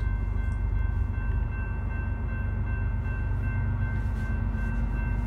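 Union Pacific coal train's diesel locomotives approaching: a steady low rumble, with faint steady high tones held over it.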